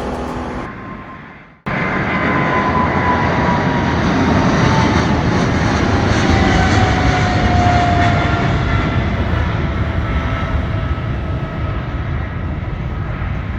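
Boeing 777-300ER jet engines at high power: a loud rumble and roar that starts abruptly, with a whine that slides slowly down in pitch as the aircraft goes by. Fading music leads into it.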